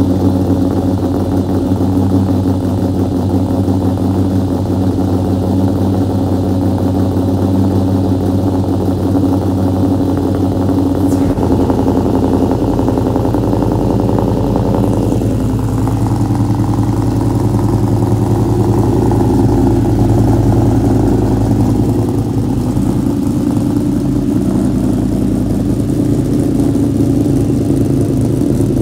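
Supercharged 4.6-litre DOHC V8 of a 2004 SVT Cobra with Stage 3 cams, longtube headers, off-road H-pipe and Borla Stinger cat-back exhaust, idling loud just after a cold start. Its note shifts about halfway through as the cold idle settles.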